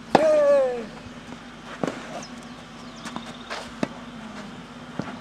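Tennis ball being struck back and forth in a clay-court rally: sharp pops of ball on racquet and court, the loudest about every two seconds. The first hit comes with a short, loud shout from a player that falls in pitch.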